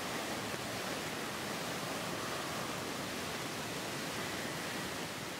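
Steady rushing jet noise from a Boeing 777-300ER's GE90 engines as the airliner rolls out along the runway after landing: an even hiss with a faint high whine over it.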